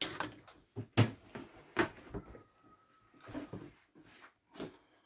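Handling noises on a tabletop: wooden lolly-stick pieces and craft materials picked up, shuffled and set down, with a run of light knocks and rustles. The two sharpest knocks come about one and two seconds in.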